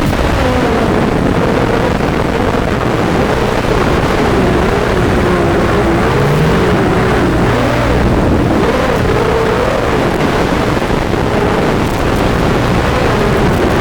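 Racing quadcopter's brushless motors and 5-inch propellers, Lumenier QAV250 on Cobra 2204 1960kv motors, whining under hard throttle, the pitch rising and falling constantly as the throttle changes. Rough rushing noise runs underneath.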